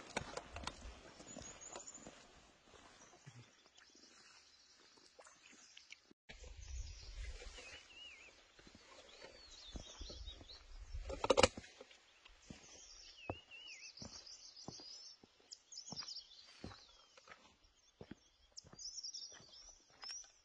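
Quiet mountain outdoor ambience: small birds chirping in short, quick calls, more of them in the second half. Scattered faint clicks and steps are heard, along with patches of low wind rumble on the microphone, loudest briefly about eleven seconds in.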